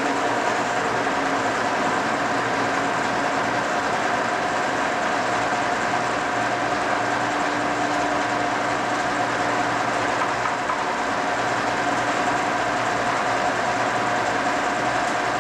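Cincinnati No. 5 heavy-duty vertical milling machine running under power: its 25 HP main motor and spindle gearing give a steady machine hum with a few constant whining tones, unchanging in level.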